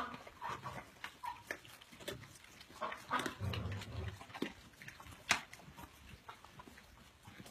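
Animals eating noisily from a shared bowl: irregular chewing and smacking clicks, with one sharper click about five seconds in.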